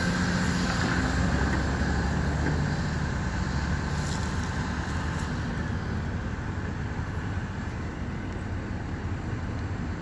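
Diesel engines of demolition excavators running steadily, a continuous low rumble with no loud crash or impact.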